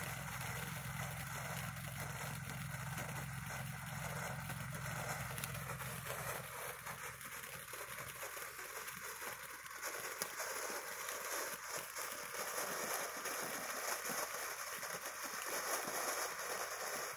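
Phantom Fireworks Treasure Fountain, a ground firework fountain, burning with a steady hiss of spraying sparks. Crackling grows thicker in the second half.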